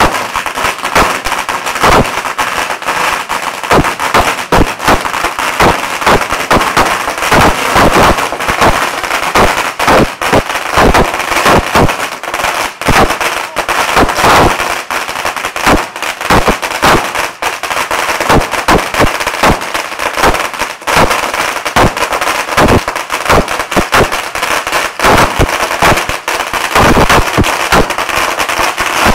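Firecrackers going off in a loud, rapid, unbroken run of bangs.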